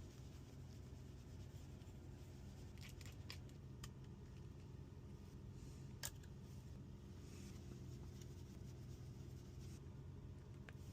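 Faint small clicks and taps of parts and hand tools during an iPhone screen replacement, the sharpest about six seconds in, over a steady low hum.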